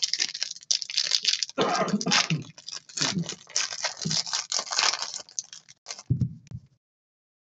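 A foil trading-card pack being torn open and crinkled by hand, a run of rustling and crackling that stops abruptly near the end.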